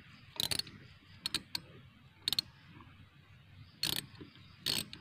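Ratchet wrench clicking in several short, uneven bursts as it turns 1/4-inch bolts in the brake drum's two threaded puller holes, forcing the drum off the hub.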